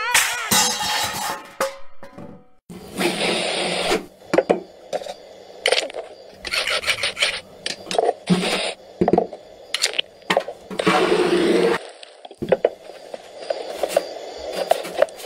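A string of cartoon sound effects: two noisy rattling bursts, each about a second long, separated by quick knocks and clicks.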